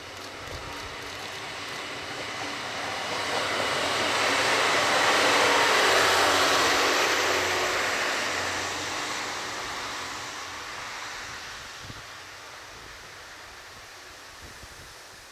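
DB Class 628 diesel multiple unit passing close by. Its engine and running noise build to a peak about six seconds in, then fade away as it moves off.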